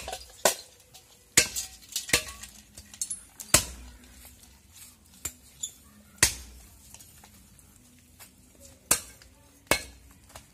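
Large chopping knife hacking raw mutton on a wooden block: about eight sharp chops at irregular intervals, closer together in the first few seconds and sparser after.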